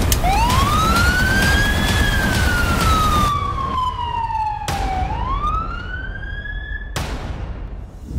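Ambulance siren wailing: the pitch sweeps up for about two seconds, slides slowly down, then sweeps up again near the end.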